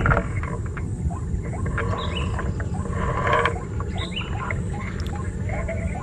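White-breasted waterhens (ruak-ruak) calling: a run of many short, repeated calls, busiest about three seconds in, over a steady low rumble.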